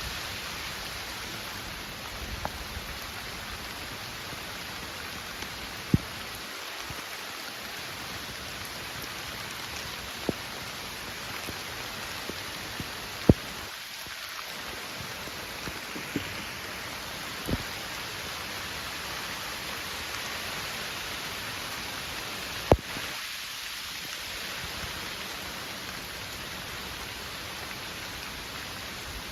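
Heavy rain falling steadily on a garden, with now and then a single sharp tap of a drop striking a hard surface, about six in all.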